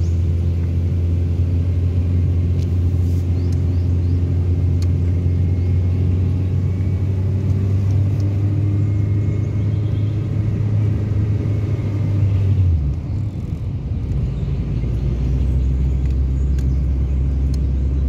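Car engine and road rumble heard from inside the cabin while driving uphill, a steady low drone. About two-thirds of the way through, the engine's hum drops to a lower pitch and stays there.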